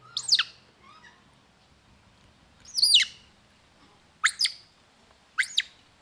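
Short, sharp high-pitched animal calls: four loud ones spaced a second or more apart, plus a fainter one about a second in, each sweeping quickly down in pitch.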